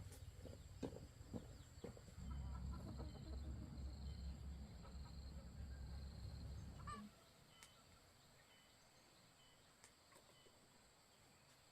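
Chickens clucking softly over a low rumble and a few small knocks; the rumble stops about seven seconds in, leaving it quiet.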